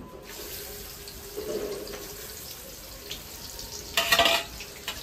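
Onion frying in hot oil in a pan: a steady sizzle that begins right at the start, with a brief, louder burst about four seconds in.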